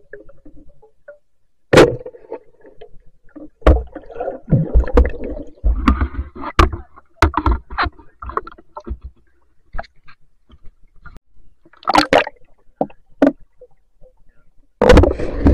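Underwater knocks and clattering from a speargun and its spear shaft: a sharp hit about two seconds in, a dense run of knocks and rattles in the middle as the speared fish is handled on the shaft, and more bursts of knocking later and near the end.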